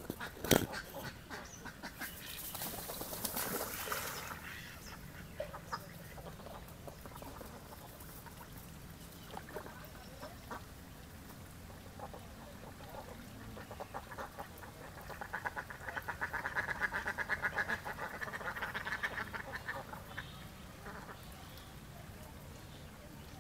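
Domestic ducks quacking on a pond, with scattered calls and then a long run of rapid quacks for about five seconds in the second half. A sharp knock sounds about half a second in.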